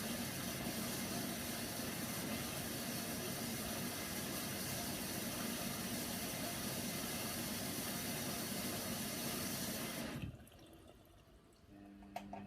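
Hoover Nextra HNWL 7146 washer dryer taking in water at the start of a Cotton 60 wash: a steady rush of water that cuts off suddenly about ten seconds in as the fill stops. A low steady hum starts near the end.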